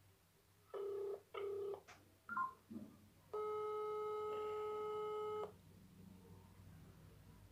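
Mobile phone on loudspeaker playing an outgoing call's ringback tone: a pair of short buzzing rings just before a second in, then a brief falling chirp, then a steady tone held for about two seconds that cuts off suddenly.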